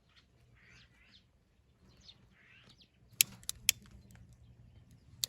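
Small birds chirping faintly, with three sharp clicks in quick succession about three seconds in and another click near the end.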